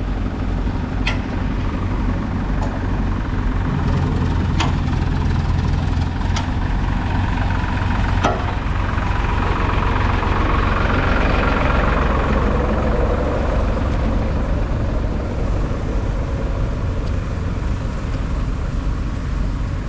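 A motor vehicle engine running steadily close by, with a deep rumble. Another vehicle seems to pass about ten to thirteen seconds in, and there are a few short sharp clicks.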